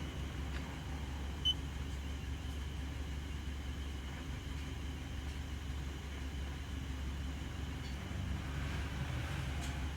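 Hyundai Matrix 1.6 four-cylinder engine at a steady idle, a low even hum, running smoothly after injection repairs cleared its cylinder-2 misfire. A single short beep sounds about a second and a half in.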